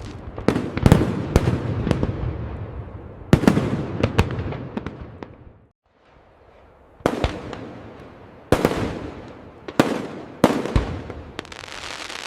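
Fireworks display: a run of sharp bangs from bursting shells, each trailing off in a fading tail, with a brief lull about halfway through.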